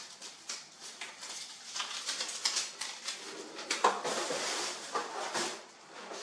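Irregular crackling and rustling as safety labels and protective film are peeled off a 3D printer's control box, with small clicks and knocks from handling the box.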